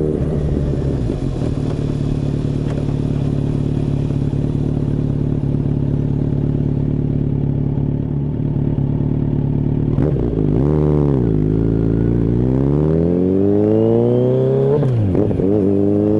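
Kawasaki Z900RS's inline-four engine through a Maverick aftermarket silencer, heard while riding: a steady exhaust note at cruising speed, then from about ten seconds in the pitch dips and climbs twice as the bike accelerates.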